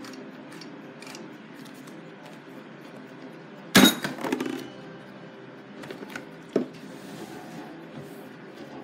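Soft radio music with a single sharp knock on the workbench about four seconds in, followed by brief handling noise and a smaller click a couple of seconds later.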